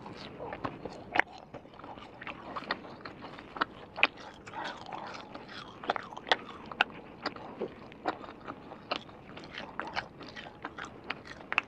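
Close-miked biting and chewing of a chewy spicy Chinese gluten-strip snack (que cay / latiao) pulled off a skewer: irregular wet mouth clicks and smacks, several a second.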